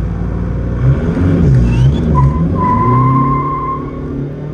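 Dodge Viper RT/10's V10 engine revving and pulling hard on a launch, its pitch swinging up and down early on. From about two seconds in, a steady high tire squeal lasts for over a second.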